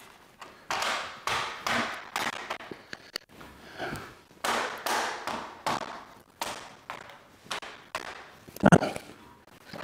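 Cables being handled and pushed into a plastic cable management channel: a series of short scrapes and light knocks about every half second, with one louder thud near the end.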